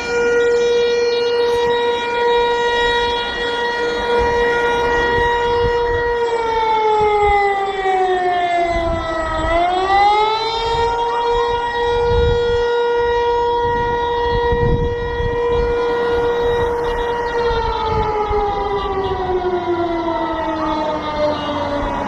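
Emergency alert siren holding one steady, buzzy tone. About nine seconds in its pitch sags and then climbs back over a couple of seconds. In the last few seconds it winds slowly down in pitch.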